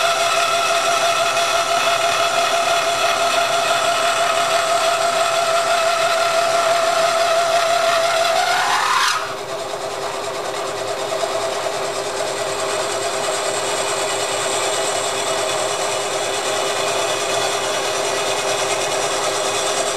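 End mill in a milling machine cutting the aluminium main bearing bosses of a Porsche 911 engine case, tapering them, with a steady high whine. About nine seconds in, the whine rises briefly and stops abruptly, and the machine runs on more quietly.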